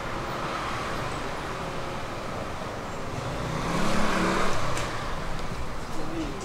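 Steady road traffic noise that swells as a vehicle passes about four seconds in, with a few light clicks near the end.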